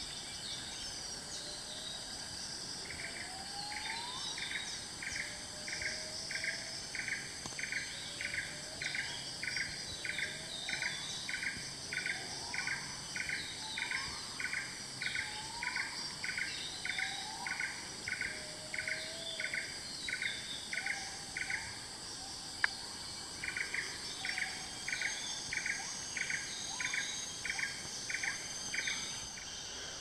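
Tropical rainforest chorus: an insect's call pulsing steadily at about two pulses a second, breaking off briefly about two-thirds through, over a constant high insect hum, with birds giving repeated short rising whistles and high chirps.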